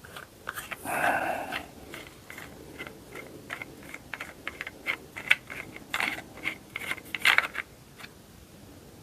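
Irregular plastic clicks and knocks from handling a cordless mini chainsaw, with a short rustle about a second in and a quick run of louder clicks near the end.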